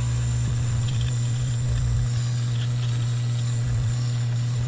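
Dremel rotary tool running steadily with a clean buffing wheel, buffing wax polish onto steel needle nose pliers; a constant low motor hum.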